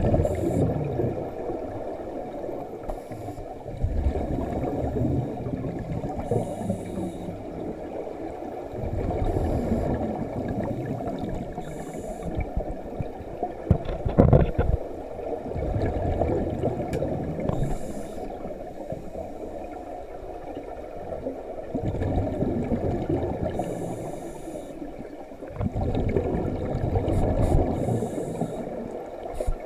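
Scuba breathing heard underwater: a short regulator hiss on each inhale, then the bubbling of exhaled air, repeating every four to six seconds. One sharp knock about halfway through.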